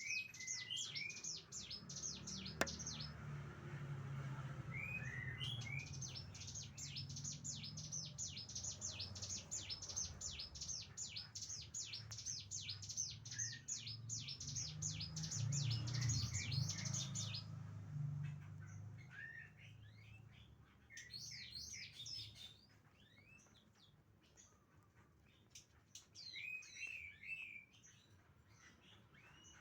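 A songbird singing long, fast runs of high, sharply falling notes, about eight a second, mixed with a few lower slurred whistles, over a low hum. About 17 seconds in the runs break off into sparser, fainter phrases with short silences between them.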